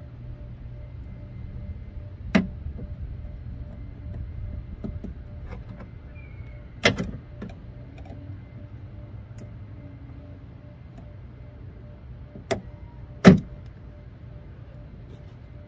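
Four sharp metallic knocks and clacks from the hardware inside a stripped car door as the window regulator is worked loose by hand, spaced out, the last two close together and the last the loudest, over a low steady rumble.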